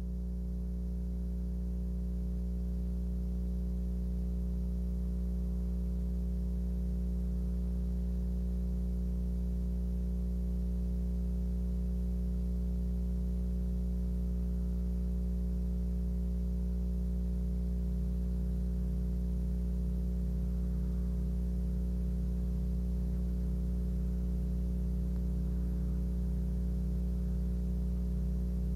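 Steady low electrical hum made of several constant tones and nothing else, typical of mains hum on an audio line.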